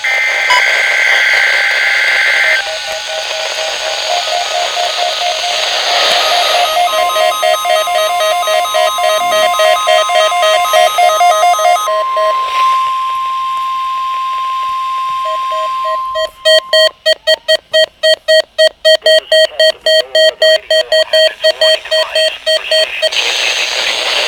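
NOAA Weather Radio weekly test alert heard over a radio: a short warbling data burst at the start, then fast repeated electronic beeping. About seven seconds in, the steady warning alarm tone comes in and holds for about ten seconds. The beeping carries on after it, chopping on and off rapidly near the end.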